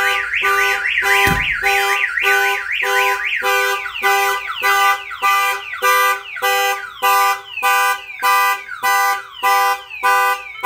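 Viper aftermarket alarm siren on a 2013 Ford F-150 sounding after the door is opened with the system armed. It starts with a fast up-and-down warble, then changes after a few seconds to a repeating falling tone about twice a second; a single thump comes about a second in.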